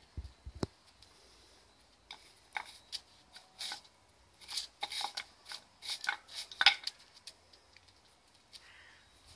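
English Setter biting and worrying a wooden-handled dustpan brush on stone paving: a string of clicks, knocks and scrapes as teeth hit the handle and the brush knocks on the slabs, loudest just before the end. Two low thumps come just after the start.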